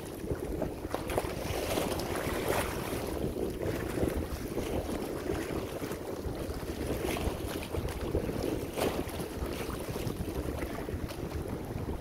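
Small waves washing and splashing against shoreline rocks, with a few sharper splashes, over wind rumbling on the microphone.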